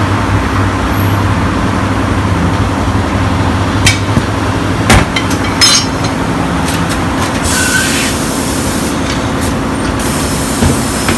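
Tyre-shop work sounds: a steady low machine hum, a few sharp metallic clinks about four to six seconds in, then two hisses of compressed air, each about a second and a half long, near the end.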